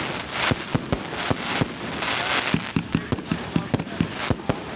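Fireworks going off: a rapid run of sharp bangs, about four a second, over a crackling hiss that swells and fades.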